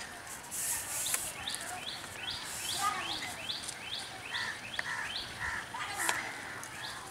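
A bird calling over and over in a rapid series of short, rising chirps, about three a second, with faint voices and a brief hiss near the start underneath.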